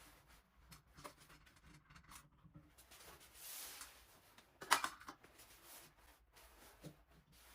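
Faint handling clicks and rustles of tools and parts being worked, with a short hiss about halfway through and one sharp metallic-sounding click just before five seconds in, the loudest sound.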